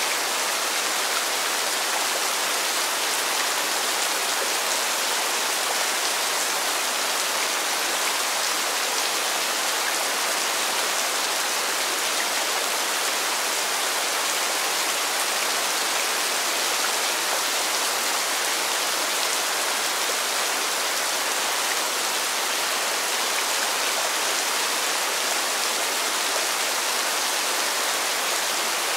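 Steady rain falling, an even hiss that neither builds nor fades, with no single drops or thunder standing out.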